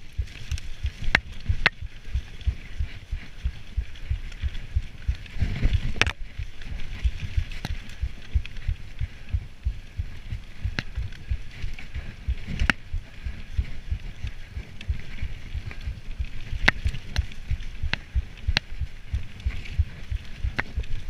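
Mountain bike ridden fast over a rough dirt forest trail: a constant jolting rattle and thudding of the bike and camera over bumps and roots, a hiss of tyres and air, and now and then a sharp knock or clack of chain or frame.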